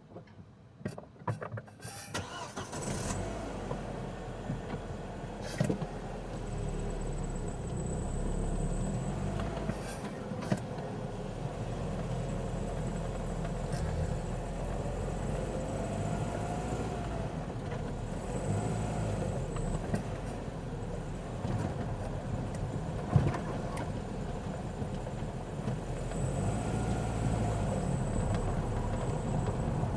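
Audi A4 B5 engine: a few clicks, then the engine running from about two seconds in, rising in pitch a few times as it takes load. The owner reports a rattle under load, such as when pulling away, and does not know its cause.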